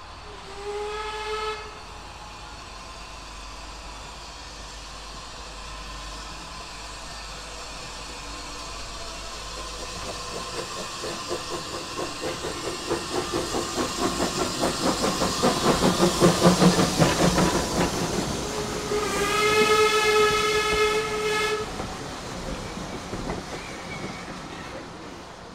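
Small steam tank locomotive gives a short whistle, then comes past hauling a coach, its exhaust beats growing louder as it nears. About nineteen seconds in it gives a second, longer and louder whistle blast, and the coach wheels roll past on the rails.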